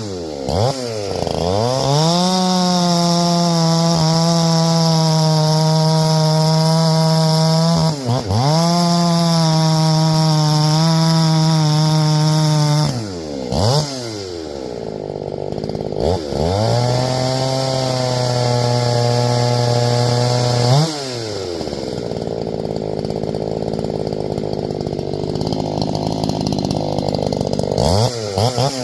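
Ported Neotech 865 two-stroke chainsaw running at high revs, the pitch dropping sharply and climbing back several times as the throttle comes off and on. In the second half it holds a lower, rougher pitch.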